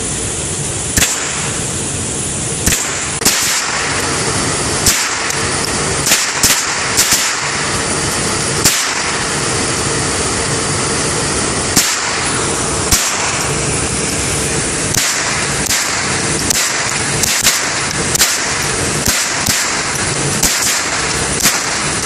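Semi-automatic AR-style rifle fired shot by shot in an indoor range, about twenty sharp shots at an uneven pace, mostly a second or two apart, with a quick run of four shots about six to seven seconds in. A steady rushing background noise runs under the shots.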